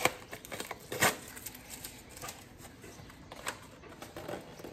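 A small cardboard sunglasses box being handled and opened by hand: scattered clicks and rustling of cardboard and packaging, with two louder clicks, one at the start and another about a second in.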